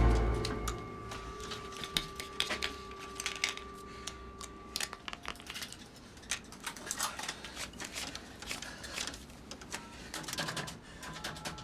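Rapid clicking of keys being typed on a computer keyboard, with two steady electronic tones that stop about five seconds in and short beeps near the end. Music fades out in the first second.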